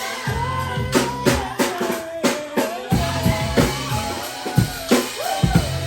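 Hip-hop music with a steady drum-kit beat of kick, snare and rimshot hits under a sung melody line.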